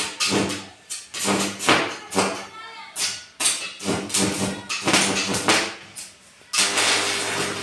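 Homemade salt-water-resistor arc welder crackling and buzzing as the electrode is struck against an iron pipe, in irregular bursts about half a second to a second apart, with a longer steady burst near the end.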